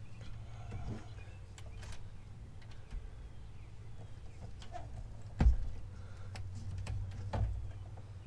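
A socket and extension being fitted and worked on a spark plug in an engine bay, making scattered metal clicks and knocks. The loudest is a single knock about five and a half seconds in, with a smaller one near the end, over a steady low hum.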